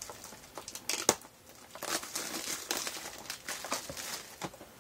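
Hands opening a small cardboard Funko Mystery Minis blind box, with crinkling of the packaging and small ticks, and a sharp click about a second in.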